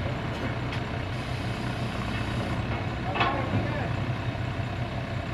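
Diesel engine of a backhoe loader idling steadily, with a brief sharp sound about three seconds in.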